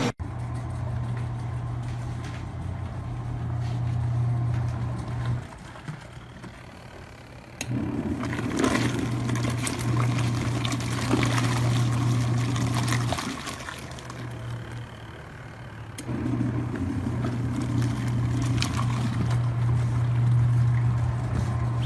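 COSTWAY mini washing machine running its wash cycle: the motor hums steadily while water and clothes churn in the tub. The hum stops about five seconds in and again about thirteen seconds in, then starts up again each time.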